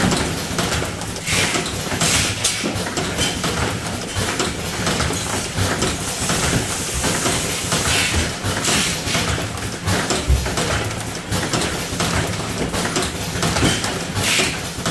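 Automatic cartoning machine running: a steady, dense clatter of mechanism and cardboard cartons, with short hissing swells now and then.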